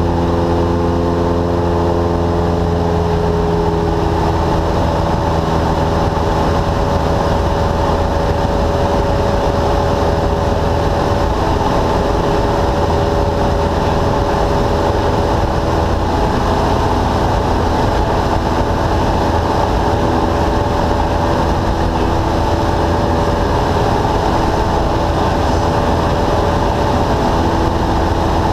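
Cessna light aircraft's piston engine and propeller droning steadily in cruise flight, heard inside the cabin. Its tone shifts slightly about three to four seconds in.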